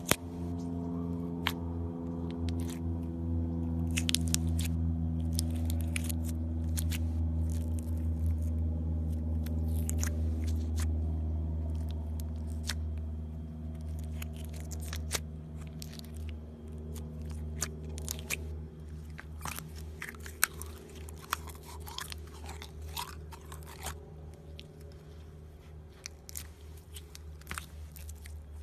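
Clear slime packed with white foam beads being pressed and squished by fingers, giving many small crackling clicks and pops. A steady low hum runs underneath and fades away over the first half.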